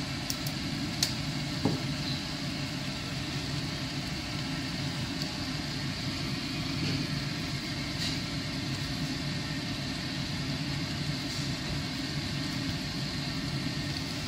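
Thick meat stew being stirred in a pan with a silicone spatula, with a few light knocks against the pan near the start, over a steady low hum.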